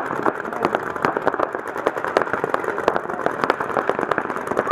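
Paintball markers firing in rapid, irregular strings of shots, several a second, over a steady rushing noise.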